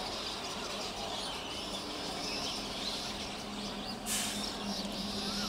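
Electric multiple unit train approaching along a station platform, a faint steady hum under birds chirping, with a short hiss about four seconds in.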